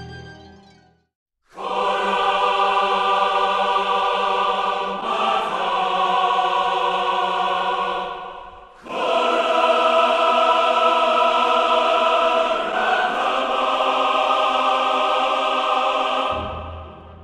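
Choral music: massed voices holding long sustained chords in two long phrases, with a short break about eight and a half seconds in.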